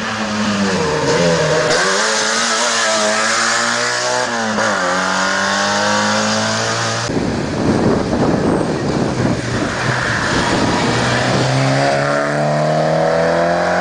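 Rally car engines at full throttle on a closed stage, the revs climbing and then dropping at each gear change. About halfway through the sound turns suddenly into a rough, noisy engine sound close by, and near the end the revs climb again.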